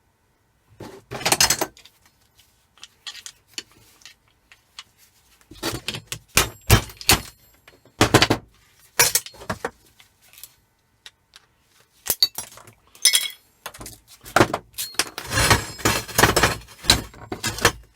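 Metal and plastic parts of a small microwave motor clinking and knocking as it is pried and broken apart by hand to get the copper out. Irregular clatter with gaps, busiest in the last few seconds.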